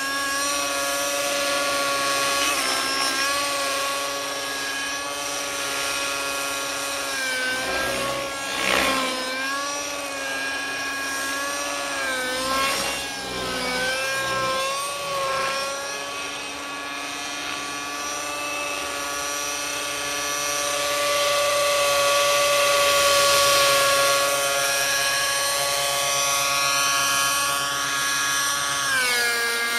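T-Rex 600N nitro RC helicopter's Redline .53 two-stroke glow engine, fitted with a Redline Hi Flow tuned pipe, running in flight as one steady high whine with its rotor. The pitch dips and recovers briefly about a quarter of the way in, several times around the middle and again near the end, as the engine is loaded during manoeuvres. It grows louder in the second half as the helicopter comes closer.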